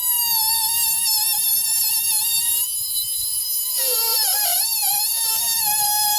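Oscillating multi-tool cutting out a piece of drywall ceiling, giving a steady high buzz. Its pitch wobbles and dips for about a second, some four seconds in, as the blade takes load.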